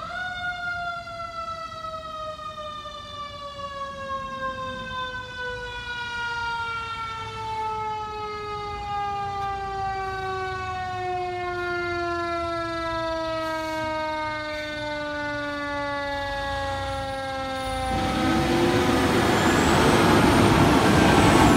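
Fire engine's mechanical siren spinning up sharply, then winding down in one long, slow falling tone. About three seconds before the end a loud rushing noise from the truck drawing close joins in.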